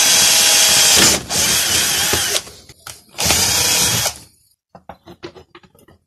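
Power drill running in three bursts into a plastic pipe, drilling and driving the fixings for a metal strap handle; the motor's pitch sags and shifts as it takes the load. A few light clicks and taps follow.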